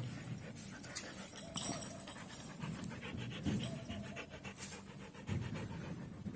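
A Siberian husky panting, with a sharp click about a second in.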